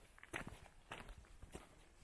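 A hiker's footsteps on a mountain trail: three steps a little over half a second apart.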